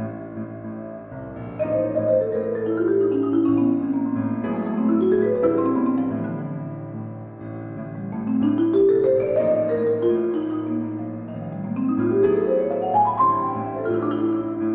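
Marimba played with mallets in fast sweeping runs, a long one falling down the keyboard and then runs rising and falling, over a grand piano accompaniment.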